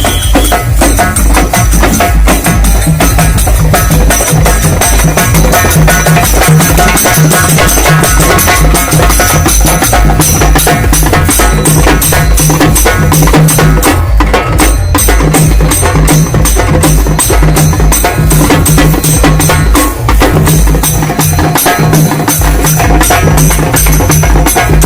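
Halgi frame drums beaten fast with sticks in a loud, dense, driving rhythm, with a brief break about 14 seconds in.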